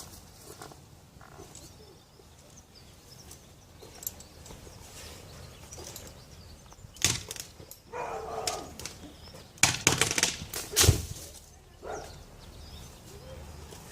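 A beefwood tree, cut through by handsaw, giving way and falling: a sharp crack about seven seconds in, then more cracking and the rustle and crash of branches, ending in a heavy thud as the trunk hits the ground about eleven seconds in.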